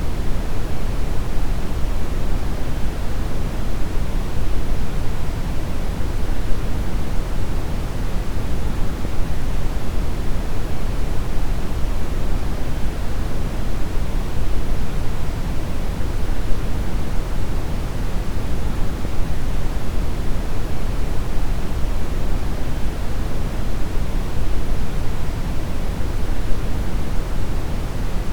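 Deep brown noise: a steady, even rumbling hiss with most of its energy in the low end, unchanging throughout.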